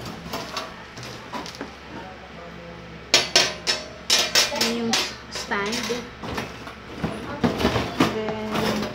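Metal wire dish-rack parts clinking and rattling against each other as they are handled and lifted out of a cardboard box. The sharp metallic clinks come thickest from about three seconds in.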